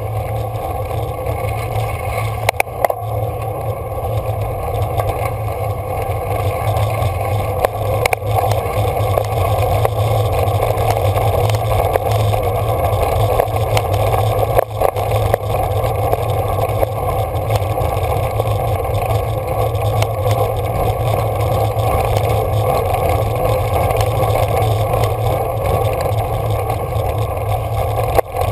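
Steady rumble of a road bicycle riding over a rough, gravelly road surface, with a few sharp knocks from bumps.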